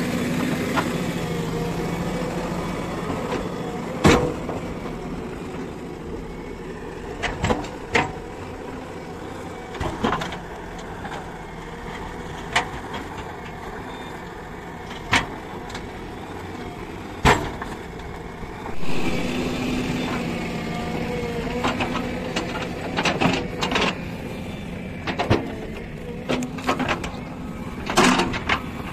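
JCB 3DX backhoe loader's diesel engine running under load while the backhoe digs soil. Sharp knocks and clanks from the arm and bucket come every few seconds. The engine note picks up about two-thirds of the way through.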